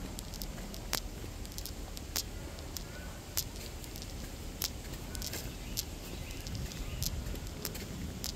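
Footsteps crunching on a dirt woodland trail strewn with dry leaves and twigs, a sharp crunch about every second in an even walking rhythm, over a low steady rumble.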